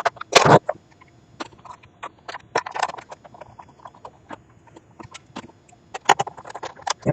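Irregular clicks and knocks of a plastic projector casing and its parts being handled and taken apart, with a louder clatter about half a second in and again near the end.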